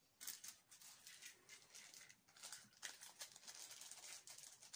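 Near silence with faint, scattered rustles and light clicks, the handling noise of someone moving about near the controller just after it is powered on.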